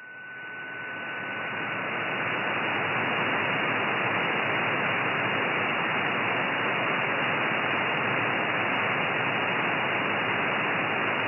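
Hiss from an RTL-SDR receiver with a microwave downconverter, tuned to the 13 cm amateur band in upper sideband with no signal present. The hiss swells over the first few seconds as the slow AGC lets the gain back up after the strong station stops transmitting, then holds steady. A faint steady tone fades away early in the hiss.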